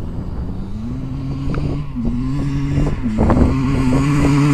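Kawasaki KX250 motocross bike's engine under throttle, getting louder as it comes closer. Its pitch rises, dips twice and climbs again.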